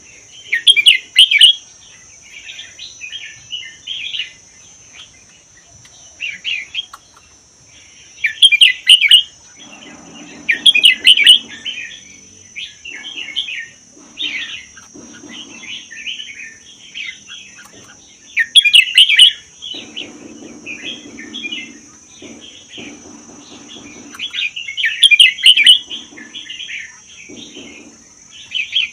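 Red-whiskered bulbul singing: short, loud, chattering whistled phrases, repeated every few seconds with quieter phrases in between, over a steady high-pitched hiss.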